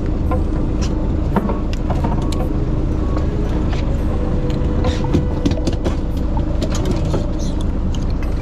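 Fishing boat's engine running with a steady low drone. Scattered knocks and clatters on the deck come from gear being handled.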